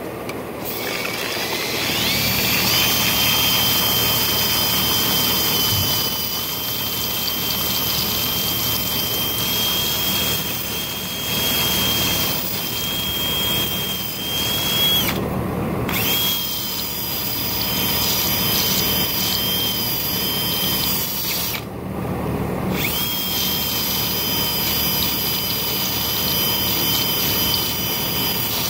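Cordless drill driving a P240 abrasive sanding belt around a steel shaft to polish it. The drill's whine rises as it spins up about a second in, then runs steadily over the hiss of the belt on the metal. It stops briefly twice, about halfway through and again about three quarters of the way through, then starts again.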